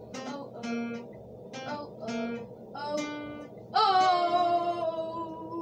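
Acoustic guitar theme music: a run of short plucked notes, then a louder long ringing note from a little under four seconds in.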